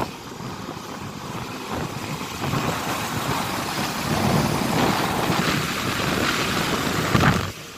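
Wind rushing over the phone's microphone on a moving motorbike, with road noise beneath; it grows a little louder about halfway through.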